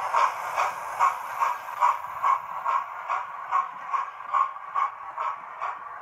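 Hornby 00 gauge Flying Scotsman model's TTS sound decoder playing steam-locomotive chuffs through its small onboard speaker while the model runs, a steady beat of about two and a half chuffs a second, getting slightly fainter.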